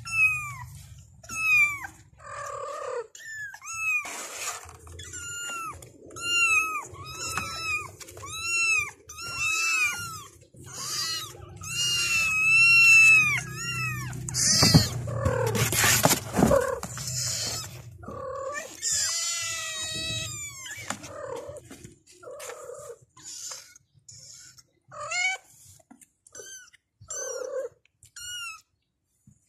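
Several young kittens mewing over and over, calling for their mother in short, high calls that rise and fall. A low purr runs underneath for the first two-thirds, and a burst of rustling on the box's cardboard comes about halfway through.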